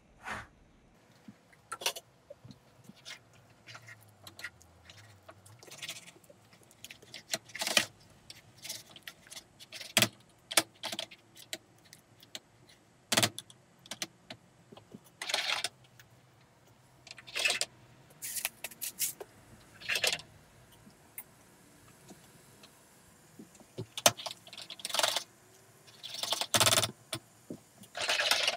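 Silicone spatula stirring and scraping mashed potato in a stainless steel saucepan: irregular sharp taps and short scrapes against the metal pot, spaced a second or more apart.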